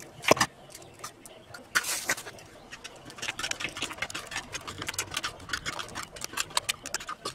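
Fork beating eggs in a plastic bowl: rapid, steady clicking taps from about three seconds in. Before that, a sharp knock near the start and a short clatter about two seconds in.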